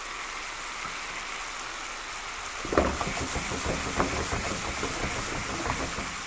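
Tomato-and-onion sauce with chicken balls simmering and sizzling in a frying pan, a steady hiss as the liquid cooks down. From about three seconds in, a run of clicks and knocks with low thumps lasts about three seconds.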